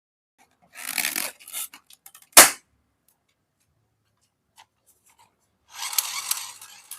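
A balloon popping once, sharp and loud, about two and a half seconds in, set between stretches of rubbing and crackling handling noise.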